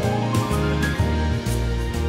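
Background music: a melodic track with bass notes that change about every half second and a light steady beat.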